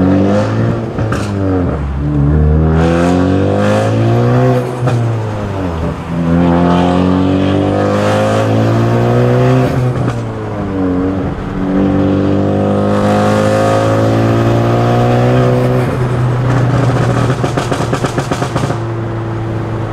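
Big-turbo Ford Focus ST's four-cylinder turbo engine accelerating hard through three gears, heard from inside the cabin: the pitch climbs through each pull and drops at each upshift, with a faint turbo whistle rising over the pulls. Near the end the throttle is lifted and the exhaust pops and crackles.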